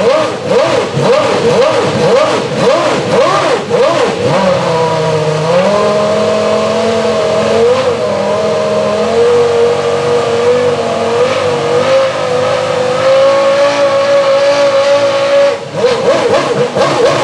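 Renault R25 Formula One car's V10 engine on a warm-up: quick throttle blips for the first few seconds, then revs held and stepped up and down at a steady pitch, a brief drop near the end, then more rapid blips.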